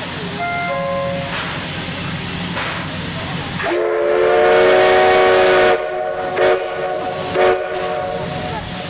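Steam hissing from a C11 steam locomotive, then its steam whistle sounds a few seconds in: one long blast, followed by two short toots before it stops near the end.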